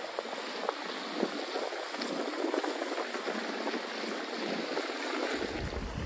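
Small waves washing and fizzing against a rocky shoreline, a steady hiss full of fine crackles, with a low rumble coming in near the end.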